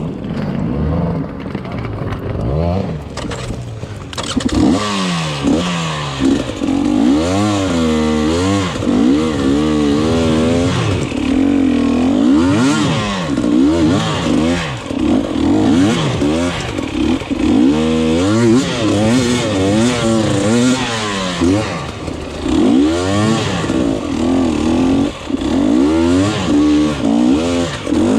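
Enduro motorcycle engine ridden hard, revving up and falling back again and again, its pitch rising and dropping every second or two. It is lower and steadier for the first few seconds, then climbs into repeated hard revs.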